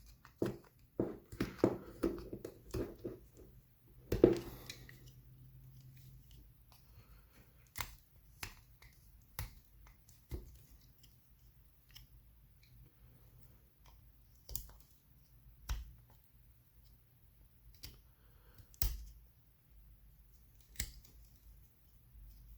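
A soft plastic funnel being cut and trimmed with a blade. There is a quick run of sharp snips and clicks in the first few seconds, then single clicks every second or two.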